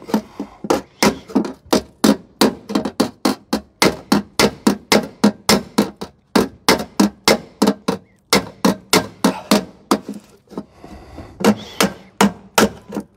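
Hand hammer striking a tack-welded steel car sill repair panel in steady sharp blows, about three a second, with a couple of short pauses in the second half. The blows are knocking the panel edge down level so the seam fits for welding.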